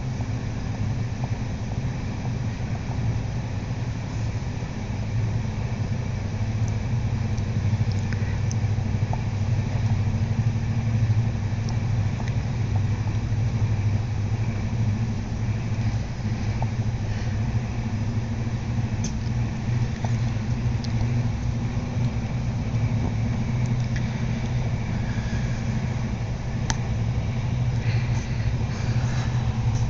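Passenger train running along the track, heard inside the carriage: a steady low rumble, with a few faint clicks in the second half.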